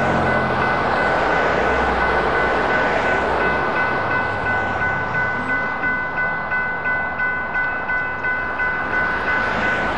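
Railroad crossing electronic bells ringing steadily at the activated signals, over the rush of passing road traffic.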